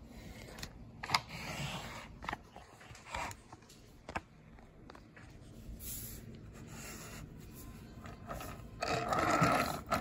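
Handling noise from hands moving a die-cast toy street sweeper truck: scattered light clicks and rubs, then a louder scraping rub near the end.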